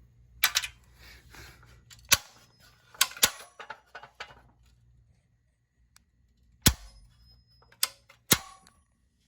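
About seven sharp metallic clicks and knocks at uneven intervals, some with a short crackle after, from handling the rusted, crumbling sheet-metal box of an old electrical disconnect.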